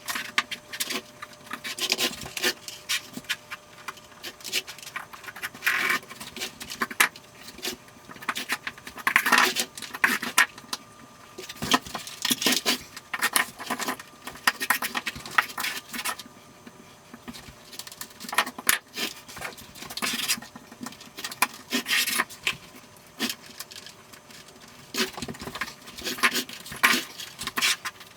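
Heating cable being pushed by hand into the plastic studs of a Schluter Ditra Heat membrane: irregular snaps, clicks and rustling of plastic and wire, coming in clusters with short pauses.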